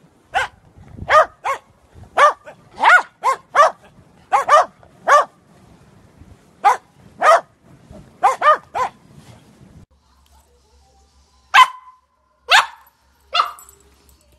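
A dog barking repeatedly: about fifteen short, sharp barks in quick irregular runs, then after a brief pause three more spaced barks near the end.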